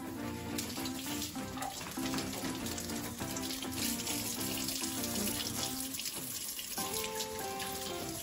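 Kitchen faucet running into a stainless steel sink, the stream splashing over a child's hands as she washes them. Background music plays underneath.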